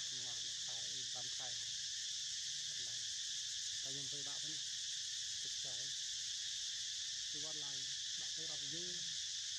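Steady, high insect chorus without a break, with faint human voices talking now and then.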